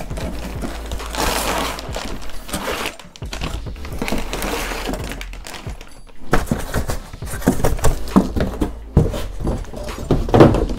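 Cardboard boxes scraping and sliding against each other as an inner box is lifted out of a carton. From about halfway through come a series of knocks and thumps as cardboard and plastic-wrapped parts are handled.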